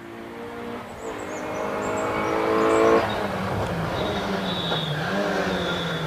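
Opel Corsa GSI rally car engine accelerating hard and growing louder as the car approaches, its pitch climbing and then dropping sharply at a gear change about three seconds in, before pulling again in the next gear.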